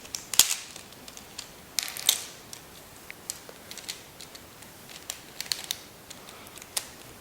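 Plastic pieces of a MoYu Aolong 3x3 speed cube clicking and snapping as its layers are turned and a flipped edge is worked back into place: irregular sharp clicks, the loudest about half a second and two seconds in.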